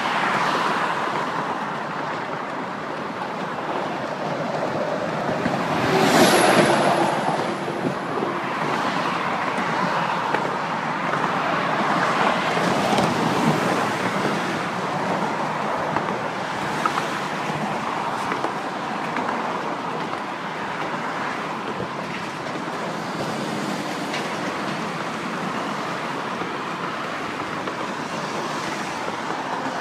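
Steady rush of road traffic crossing the Forth Road Bridge, with one louder vehicle passing about six seconds in.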